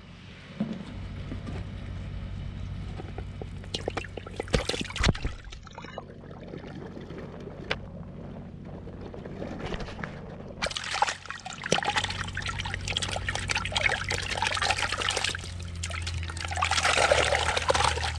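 Water splashing and spraying in a black plastic tub, starting suddenly about eleven seconds in and loudest near the end. Before it there is a low steady hum with a few sharp knocks.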